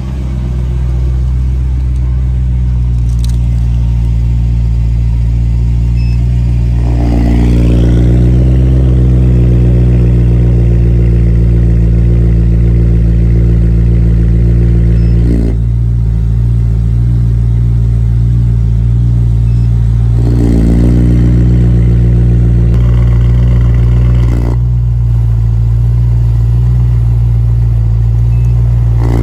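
Supercharged BMW M3's V8 idling through aftermarket remote-controlled valved mufflers. The exhaust note steps up louder and fuller about a quarter of the way in and drops back around the middle. It steps up again about two-thirds through and drops back a few seconds later, as the muffler valves are opened and closed.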